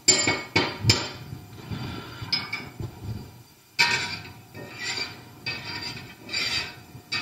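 Metal spatula scraping and knocking against a cast iron skillet as a pat of butter is pushed around in hot oil, in a string of short scrapes: a few near the start and more from about four seconds in.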